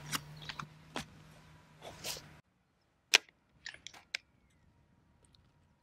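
Light taps and rustles as a card target on metal stakes is pushed into turf, then one sharp click followed by three lighter clicks within about a second as the BSA Lightning SE break-barrel spring air rifle is broken open and cocked.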